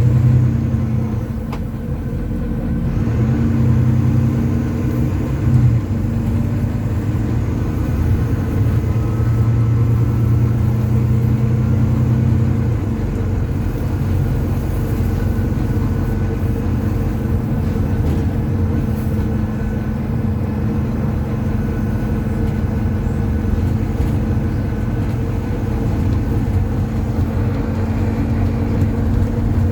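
Volvo B9TL double-decker bus's inline-six diesel engine running under way, heard from inside the bus. Its note shifts several times in the first dozen seconds, then holds steady.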